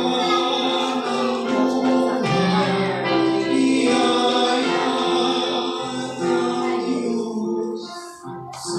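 A group of carolers singing a Christmas carol together, holding long notes. The singing breaks off briefly near the end before the next line begins.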